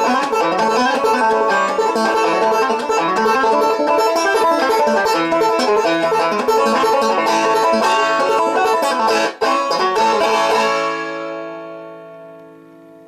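Five-string resonator banjo played clawhammer style, a steady run of quick picked notes. About ten and a half seconds in, the tune ends on a final chord that rings and fades away.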